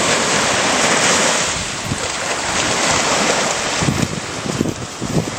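Ocean surf washing on the shore, loudest in the first two seconds, with wind buffeting the microphone in low gusts from about four seconds in.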